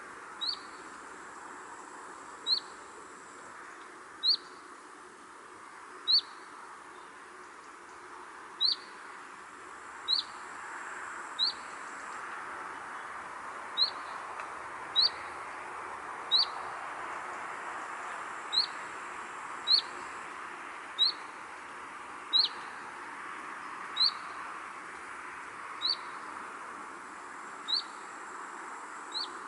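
A bird repeating one short, high, falling chirp about every one to two seconds, over a steady soft hiss.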